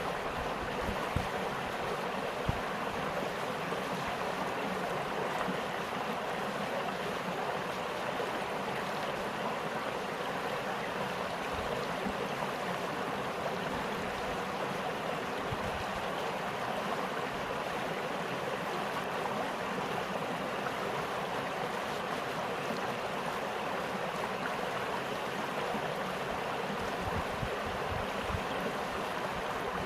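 Spring stream of snowmelt-fed water flowing steadily, an even rushing and splashing with no pauses.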